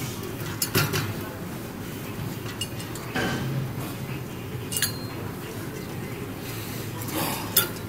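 A handful of short metallic clinks and knocks from a weight-stack leg extension/leg curl machine as it is shifted and loaded, spread out over a steady gym background hum.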